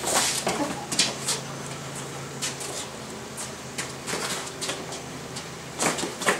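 Sparring scuffle: a scatter of short slaps and scuffs from feet shuffling on paving and boxing-gloved punches landing, over a steady low hum.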